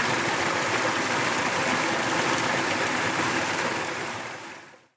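Water of a mountain stream flowing and swirling in eddies, a steady rush that fades out over the last second.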